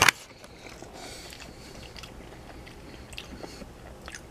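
A person chewing a mouthful of baked penne pasta in marinara sauce, soft and quiet, with a few faint small clicks. A single sharp click right at the start is the loudest sound.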